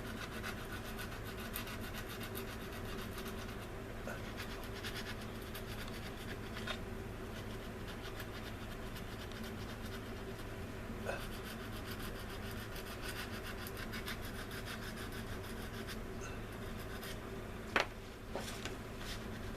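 Sanding stick rubbing over a plastic model kit part in quick scratchy strokes, smoothing down a seam filled with CA glue and styrene dust. A single sharp click about three-quarters of the way in.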